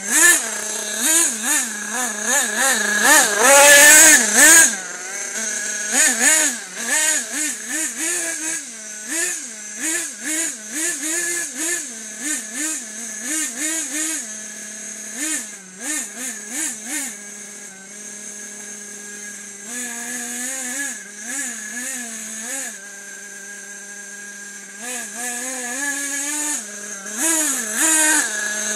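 Nitro RC buggy's small two-stroke glow engine, revved in quick repeated throttle blips, loudest a few seconds in, and settling twice into a steady idle in the second half.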